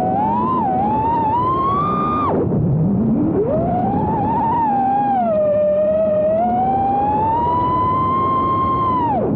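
5-inch FPV racing quadcopter's T-motor brushless motors whining, the pitch rising and falling with the throttle. The whine drops sharply to a low pitch about two seconds in, climbs back and holds high, then falls off again near the end.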